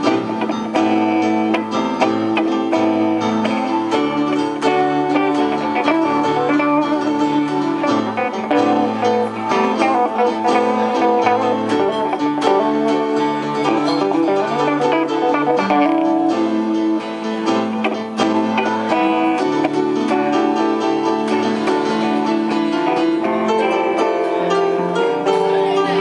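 Live instrumental jam on electric keyboard and electric guitar, playing continuously.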